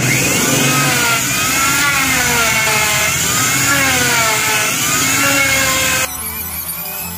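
Electric router running and cutting along the edge of a wooden door panel, its motor whine dipping and rising in pitch again and again as the bit takes the wood. It cuts off abruptly about six seconds in, giving way to background music.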